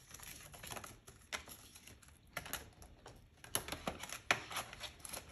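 Paper banknotes and cash envelopes being handled on a tabletop: soft rustling with irregular light clicks, the sharpest about four seconds in.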